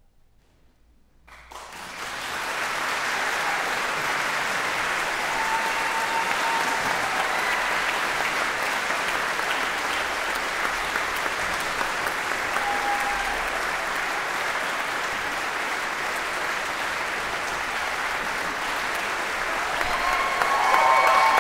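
Near silence for a moment, then an audience breaks into applause about a second and a half in. The clapping quickly swells and holds steady, then grows louder near the end.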